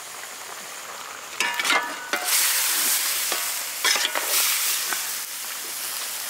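Turkey meat sizzling in a wide pan as it fries. A long metal ladle scrapes and clatters against the pan as the meat is stirred, starting about a second and a half in and again about four seconds in.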